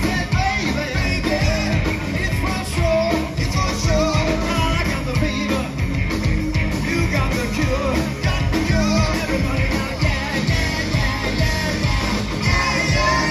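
Live rock band playing: a lead singer over distorted electric guitars and a driving drum beat.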